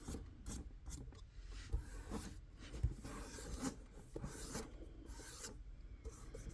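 Faint, irregular rubbing and scratching with scattered light ticks: hands working small model-kit parts, pressing and fitting tiny sign letters onto a 1/64-scale diorama.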